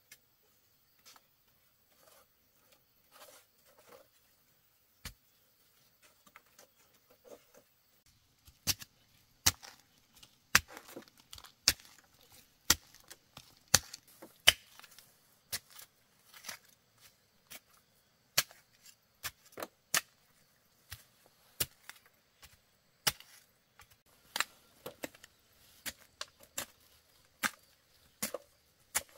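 A blade chopping into wood, sharp separate blows about once a second, starting roughly a quarter of the way in after some faint light handling sounds.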